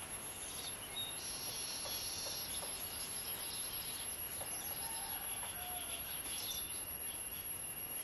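Small birds chirping in short, scattered calls, with a longer buzzy chatter about a second in, over a steady high-pitched whine.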